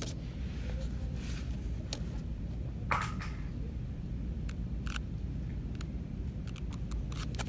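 Steady low hum of a shop's background, with scattered short clicks and rustles as a paperback book's pages are handled and flipped, one sharper snap about three seconds in.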